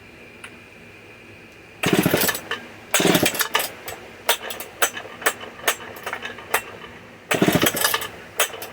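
Old Homelite chainsaw pull-started three times, the engine cranking briefly on each pull of the recoil starter cord without catching, with sharp clicks between the pulls. Gas has been poured straight into it just before, more than was needed.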